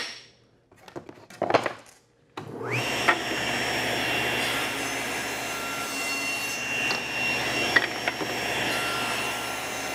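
A few knocks, then a SawStop table saw's motor starts about two and a half seconds in, with a short rising whine up to speed. It runs steadily with a high blade whine while small wood blocks are pushed through for light trim cuts that take the crosscut fuzz off their edges, with a few sharp clicks along the way.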